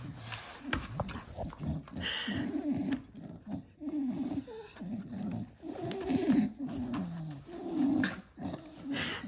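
Staffordshire bull terrier chewing and tearing at cardboard held under her paw, making repeated low grunting, piggy noises between bites, with a few sharp cardboard-tearing sounds.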